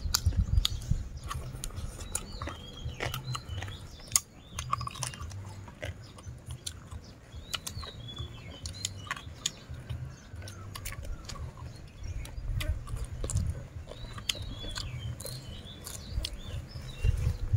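Two people chewing mouthfuls of papaya salad and raw leafy vegetables, with short crunches and clicks. Birds chirp now and then in the background.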